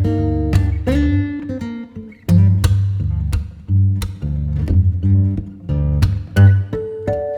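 Background music: plucked and strummed acoustic guitar over a deep bass line.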